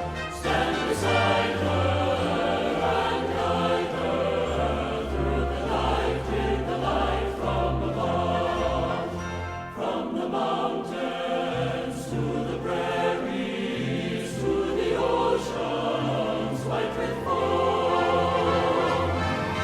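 Background music: a choir singing sustained chords over orchestral accompaniment with a deep bass.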